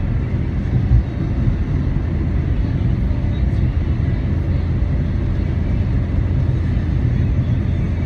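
Steady low rumble of a car's engine and tyres heard from inside the cabin while driving, with a brief thump about a second in.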